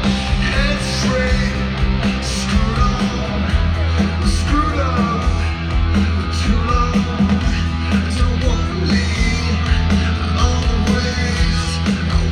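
Rock song with guitars, steady bass and a singing voice, playing at a steady level.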